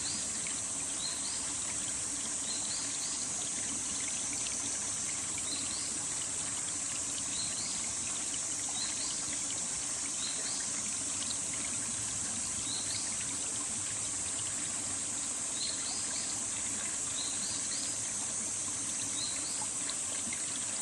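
Valley stream flowing steadily, with a steady high-pitched insect drone over it and a bird giving short rising chirps every second or two.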